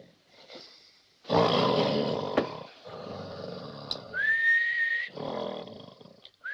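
A man snoring loudly: a long rasping snore about a second in, trailing off into a quieter breath. Then a person whistles one note that slides up and holds for about a second. The snoring comes back, and a second whistle starts at the very end.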